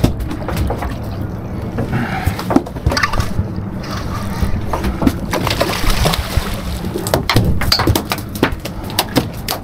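Sounds on the deck of a fishing boat at sea: water sloshing, with many short knocks and clatters over a steady low drone.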